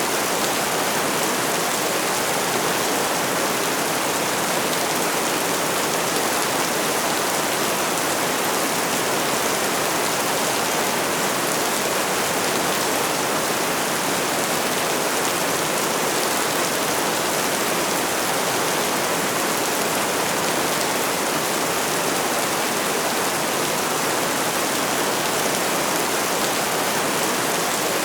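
Steady rainfall, an even, unbroken hiss with no single drops or other sounds standing out.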